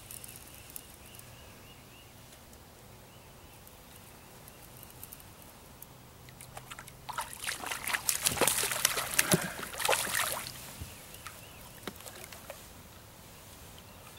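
A small hooked catfish thrashing and splashing at the water's surface beside the boat: a flurry of splashes starting about seven seconds in and lasting about three seconds.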